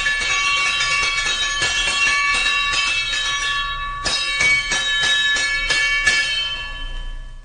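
Fire alarm bell ringing with rapid hammer strikes on its gong. About four seconds in, the strokes slow to separate hits, and near the end the ringing dies away.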